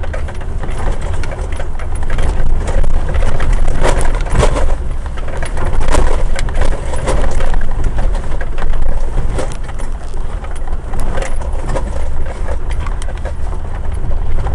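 Suzuki jeep driving over a rough off-road track, heard from inside the cab: a steady heavy low rumble from the vehicle, with frequent rattles and knocks from the body and loose parts as it goes over bumps.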